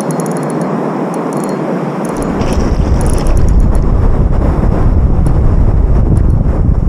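Wind buffeting the microphone, with a heavy low rumble that sets in about two seconds in.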